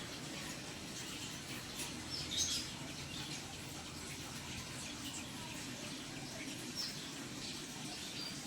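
Small birds chirping in brief high calls, the loudest about two and a half seconds in and again near seven seconds, over a steady trickle of pond water.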